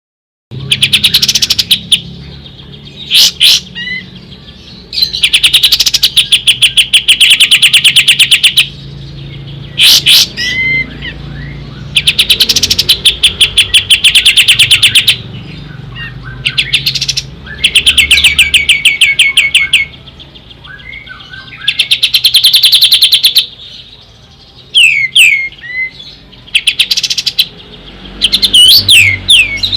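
Pied triller (kapas tembak) singing: about six rapid machine-gun trills of fast, evenly spaced high notes, each lasting one to three seconds, with short sweeping whistles between them.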